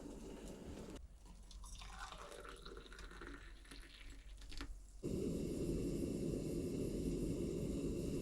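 Water trickling and dripping, changing abruptly about a second in and again after five seconds, when it becomes a louder, steadier rush.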